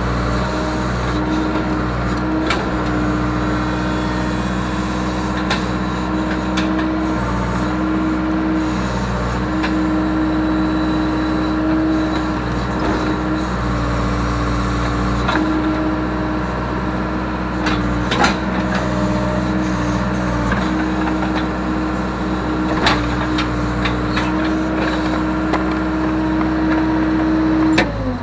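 Case 580K backhoe's diesel engine running at working throttle, its pitch dipping and recovering slightly as the hydraulics take load, with a few sharp knocks. Right at the end the engine is throttled down and its pitch falls away.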